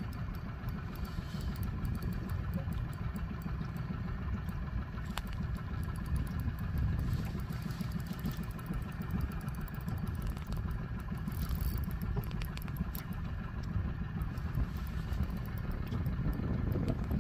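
Boat's outboard motor idling steadily with a low, even rumble.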